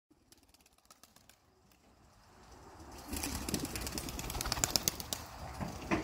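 A flock of racing homer pigeons flying close by, wings flapping in quick clicking beats that get louder about three seconds in, with one sharp thump near the end.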